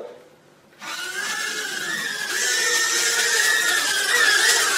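Mini drone's motors and propellers starting up about a second in, then a steady high whine that wavers slightly in pitch as it flies.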